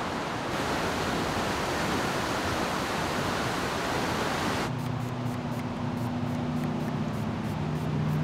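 River water rushing steadily. About four and a half seconds in, it cuts to a quieter, duller rush with a steady low hum.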